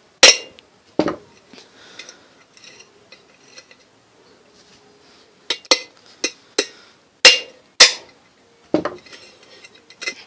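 Hammer blows on screws set in a ceiling fan's round end plate, knocking the plate loose from the fan body. About ten sharp metallic knocks, each with a short ring, come in irregular groups.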